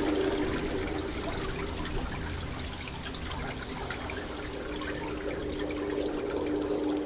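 Rain falling, an even hiss full of small drop ticks, with a faint low steady tone that fades and comes back stronger in the second half.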